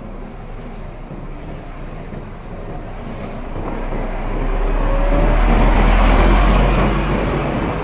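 Large coach moving past at close range: engine rumble and road noise swell to their loudest about five to seven seconds in, then ease off slightly.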